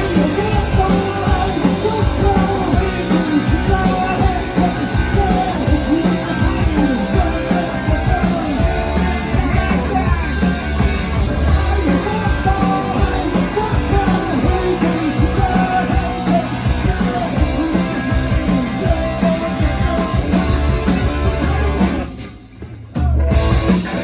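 Rock band playing live, with electric guitar, drums and singing. The band stops briefly about 22 seconds in, then crashes back in.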